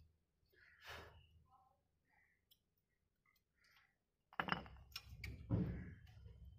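Faint handling of disc brake pad clips on a caliper: a brief rustle, a pause, then light metallic clicks and scrapes from about four seconds in as the clips are lined up.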